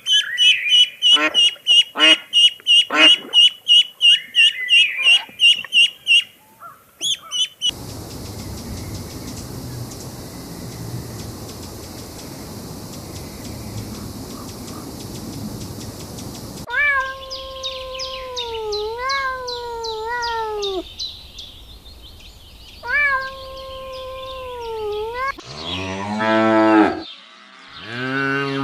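A string of separate farm-animal recordings. It opens with about six seconds of rapid repeated calls, typical of ducks quacking, then a stretch of noisy sound with no clear calls. Several drawn-out calls that fall in pitch follow, and it ends with deep cow moos.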